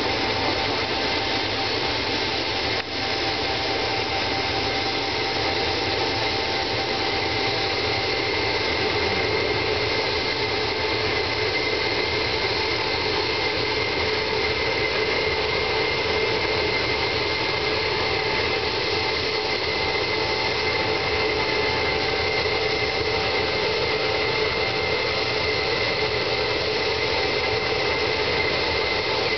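Tupolev Tu-154M's three rear-mounted Soloviev D-30KU-154 turbofan engines running at taxi power: a steady, loud jet noise with several held whining tones.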